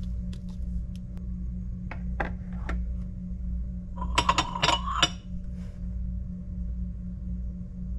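Porcelain teacups and saucers clinking against each other for about a second, a cluster of sharp clinks with a brief ring, as a cup is taken off a stack. Before it come a few light clicks and taps of small items being handled, over a steady low hum.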